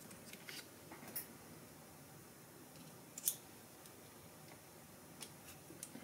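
A few light, sparse clicks and taps of small metal screwdriver bits and a precision driver being handled in a bit kit, the sharpest click about three seconds in.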